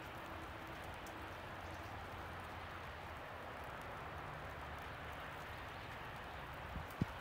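Wet snow falling, a steady pattering hiss like light rain, with a faint low hum underneath. A single sharp knock comes near the end.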